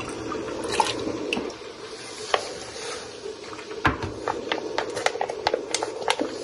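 A vacuum-sealed plastic bag of steak being pushed down into a pot of water: plastic crinkling and water splashing, with a run of small clicks and taps from about four seconds in. A steady hum from the sous vide immersion circulator runs underneath.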